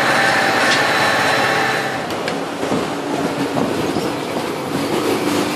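Electric blender motor running while mango lassi is blended. Its steady whine drops to a lower, rougher pitch about two seconds in.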